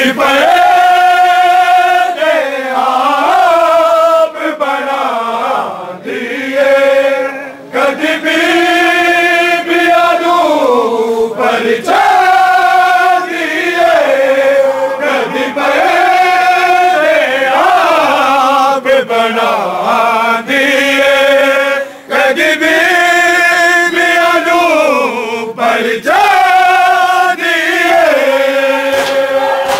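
A man chanting a noha, a mourning lament, in long held notes. Each phrase slides down in pitch at its end, with short pauses for breath between phrases.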